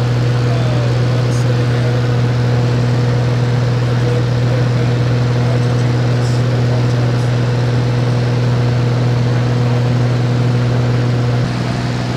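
De Havilland Beaver floatplane's 450-horsepower Pratt & Whitney radial engine running in a loud, steady drone, which eases off slightly near the end.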